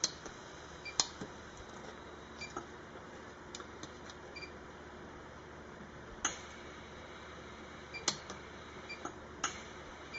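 Lampert PUK 3S pulse arc welder firing single weld pulses, each a sharp, short click, about a dozen at uneven intervals, as silver wire is fused into a crack in thin sterling. The welder is set to gap-filling mode on its lowest setting.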